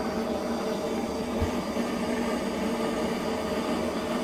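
Handheld gas blow lamp burning steadily with an even hissing flame and a low hum, as it heats a fluxed copper pipe joint for soldering.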